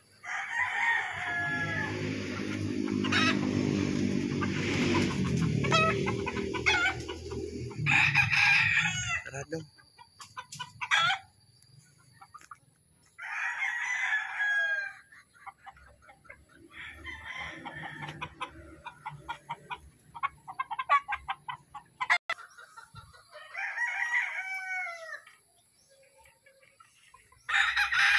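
Gamecock roosters in wire pens crowing in turn, about six crows spread through, with short clucks in between. A low steady drone runs under the first nine seconds or so, then stops.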